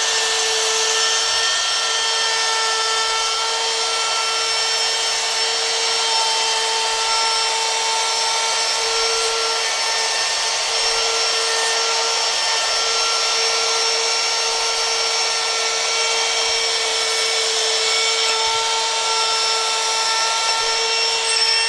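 Cordless trim router spinning a Kaizen foam spinner bit, running at a steady high-pitched whine as it is plunged and traced through Kaizen foam.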